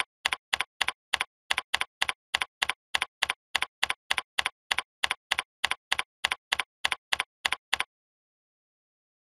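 Computer keyboard keystrokes, one click for each letter typed, evenly spaced at about three and a half a second. They stop about eight seconds in, leaving silence.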